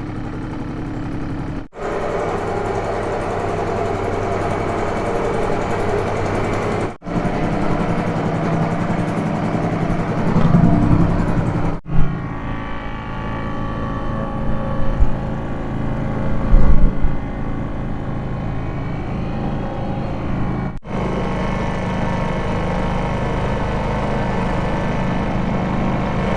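Two-stroke Seagull outboard motor running steadily, pushing a small boat along at cruising speed. Several clips are joined with brief dropouts between them, and there are a few short louder knocks around the middle.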